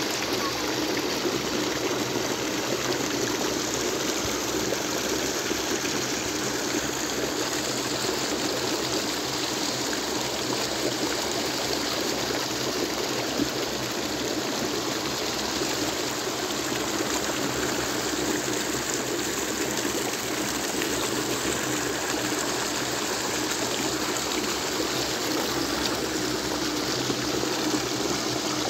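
River water pouring steadily over a low concrete weir and churning in the pool below, a continuous even rush of water.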